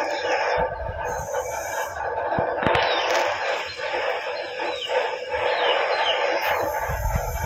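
Chickens in a yard, with a rooster crowing and small birds chirping. A low rumble comes about half a second in and again near the end.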